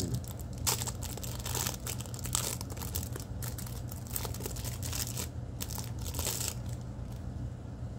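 Plastic wrapper on a small pack of Pokémon energy cards crinkling and tearing as it is picked open by hand: a run of quick rustles that thins out near the end.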